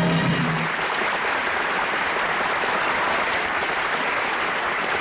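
Studio audience applauding, with the last held orchestral chord of a song ending under it within the first second.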